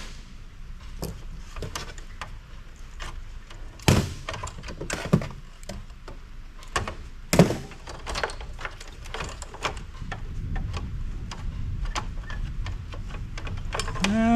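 Clicks, clatter and knocks of circuit boards, parts and hand tools being handled while an old stereo power amplifier is taken apart for scrap, with three louder sharp knocks about four, five and seven seconds in.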